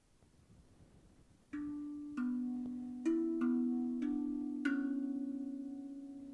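Gold RavVast steel tongue drum in B Kurd played with the fingers: after about a second and a half of quiet, six notes are struck one after another, each ringing on and overlapping the next into a low, bell-like wash.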